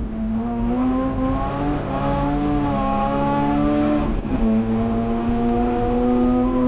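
Mazda RX-8 race car's twin-rotor rotary engine running hard, its pitch rising and falling, with a sudden dip about four seconds in before it holds steady.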